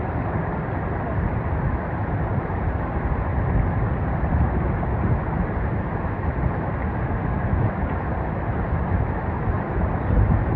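Steady rushing of a mountain stream, a dense, even noise with no breaks.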